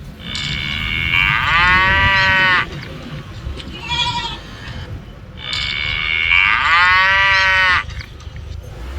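Cow mooing: two long, high-pitched calls about five seconds apart, each bending up and then down in pitch, with a short call between them.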